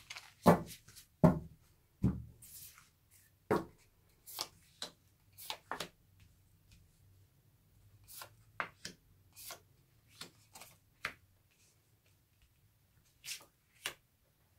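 Tarot cards being shuffled by hand and then dealt one at a time onto a cloth-covered table. The sound is a string of short card slaps and flicks, with a few heavier knocks in the first two seconds and lighter, sparser snaps through the rest.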